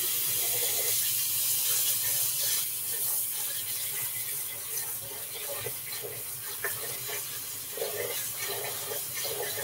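Kitchen tap running in a steady stream, filling a cooking pot with water.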